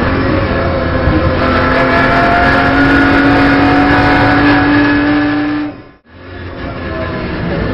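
Onboard sound of a BMW M240i Racing Cup car's turbocharged straight-six under load, its pitch climbing slowly as it pulls through a gear. The sound drops away sharply about six seconds in and the engine comes back a moment later.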